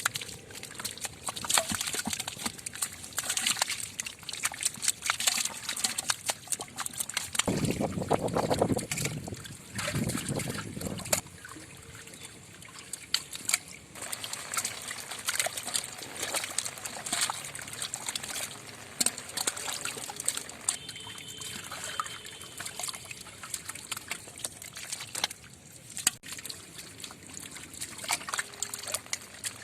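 Water sloshing and trickling, with many small splashes and clicks, and a louder low rumble for a few seconds about eight seconds in.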